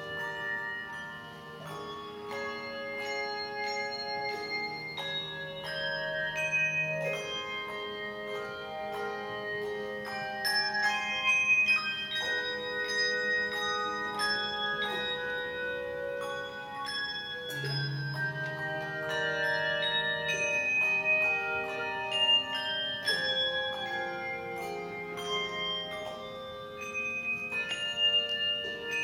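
Handbell ensemble ringing a slow jazz ballad: chords of many handbells struck and left to ring over one another, with low bass bells sounding beneath now and then.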